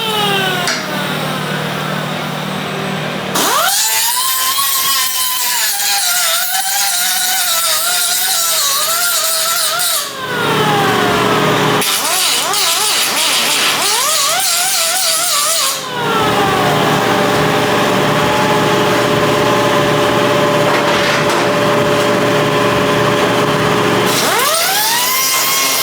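Electric grinder running on metal in several short runs. Its whine climbs as it spins up, then wavers and sags as the disc bites.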